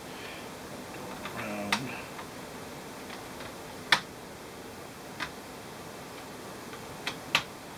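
A handful of sharp, irregular clicks and taps of a small tool against laptop parts during reassembly, over a steady background hiss; the loudest comes about halfway through and two close together near the end.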